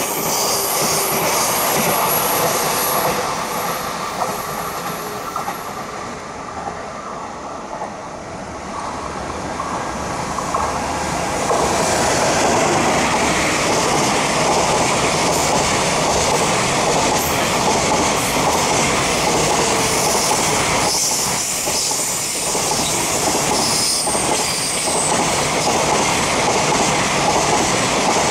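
JR Freight EF210 electric locomotive passing, followed by a long string of container flatcars rolling by with steady wheel-on-rail noise and a clickety-clack over the rail joints. A few thin high-pitched wheel squeals come from the curve.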